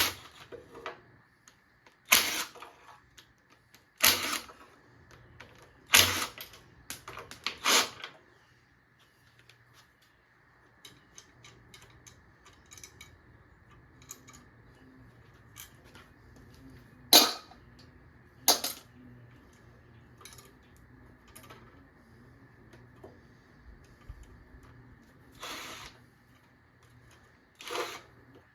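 Sharp metallic clanks and clicks of tools and engine parts being handled. There is a cluster of strikes in the first few seconds, then single ones spaced several seconds apart, over a faint steady hum.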